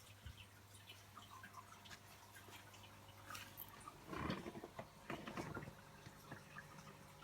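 Faint aquarium water dripping and trickling over a low steady hum, with two louder splashy gurgles about four and five seconds in.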